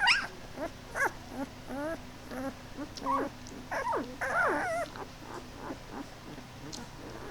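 Ten-day-old Great Pyrenees puppies crying and squeaking in short, high cries that rise and fall, several a second. The loudest cries come right at the start and about four seconds in.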